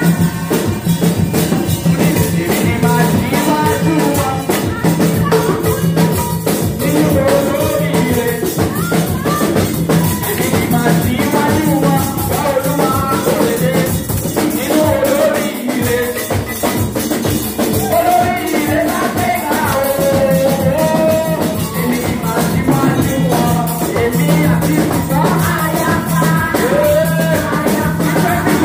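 Live church praise music: a group of women singing into microphones over conga drums and rattling hand percussion, with a steady driving beat.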